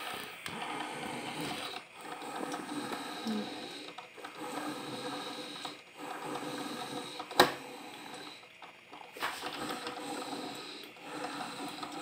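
Imarflex Aroma-Tech drip coffee maker running steadily as it brews, a humming sound with a few short dips, and one sharp click about seven seconds in.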